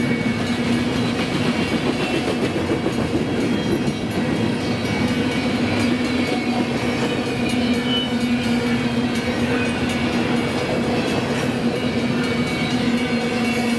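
Union Pacific intermodal double-stack freight train rolling past: steady rumble of steel wheels on rail with light clickety-clack and a constant low hum.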